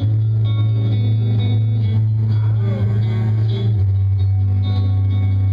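Rock music played on electric guitar and bass. A heavy bass note comes in at the start, making the music much louder, and it steps down to a lower note a little under four seconds in.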